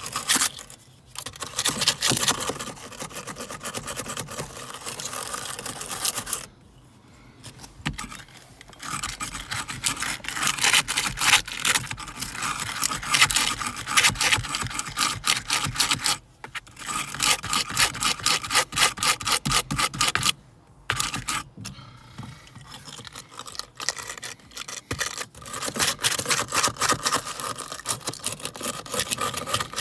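Hand wire brush scrubbing rust off bare car body metal in rapid back-and-forth strokes, stopping briefly a few times.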